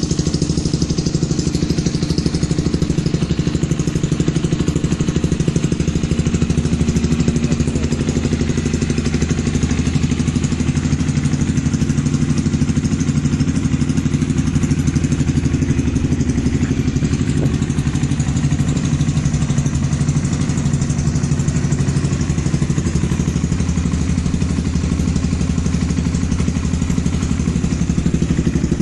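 Honda CB300R's single-cylinder engine idling steadily through an aftermarket sport exhaust, with a loud rumbling exhaust note.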